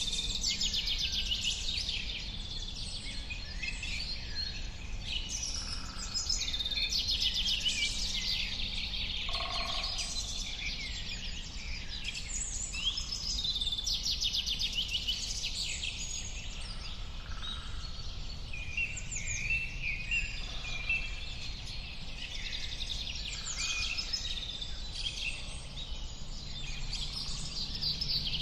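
Many songbirds chirping and singing at once, dense overlapping calls and trills, over a low steady background rumble.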